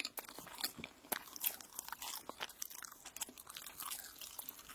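Close-miked biting and chewing of crunchy toast, an irregular run of sharp, crisp crackles.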